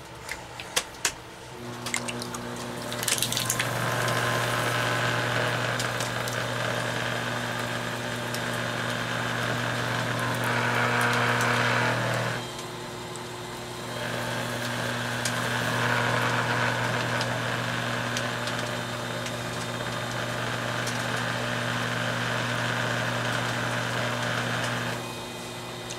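A few pats on the clay, then a Skutt Prodigy electric potter's wheel starts, its motor humming steadily. Wet porcelain clay swishes under the hands as the hump is centred and coned up and down on the spinning wheel. The swishing pauses briefly around the middle and stops shortly before the end.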